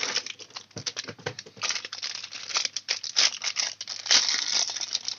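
Packaging crinkling and rustling as it is handled, a dense run of irregular small crackles.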